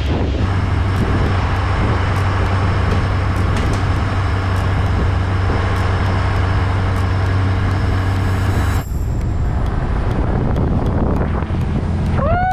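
Speedboat engine running steadily under the rush of wind on the microphone, its hum carrying a stack of even tones for the first nine seconds or so. At the end a man lets out a long shout that rises and is then held.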